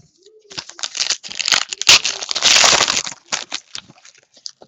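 Trading-card pack's wrapper crinkling and crackling as it is handled and torn open, with light clicks of cards being handled. The crinkling is densest and loudest from about a second in to three seconds in.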